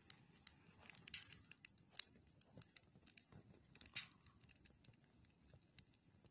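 Faint crackling of a wood fire in a metal fire pit: irregular sharp pops and snaps over a soft steady hiss, the loudest pops about one, two and four seconds in.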